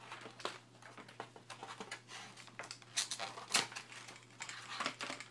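Cardboard packaging insert being handled and pulled apart by hand as a webcam is worked out through it: scattered scratchy rustles and clicks, with two sharper ones about three and three-and-a-half seconds in.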